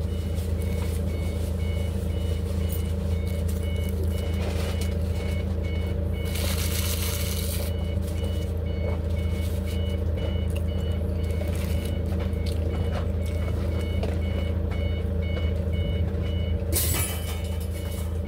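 A vehicle's backup alarm beeping at an even pace over a steady low engine hum, with two brief rushes of noise, about six seconds in and near the end.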